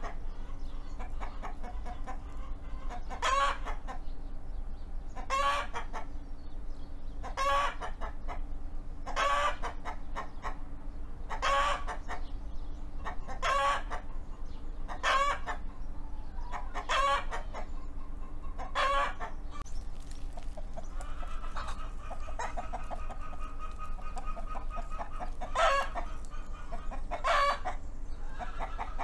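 Rooster calling over and over, short loud calls about every two seconds, around a dozen in all. Past the middle the rhythm breaks for a longer, steadier call lasting a few seconds before the short calls resume.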